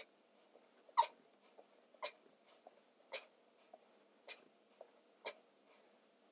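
A man's short, sharp breaths, one with each sit-up, about once a second.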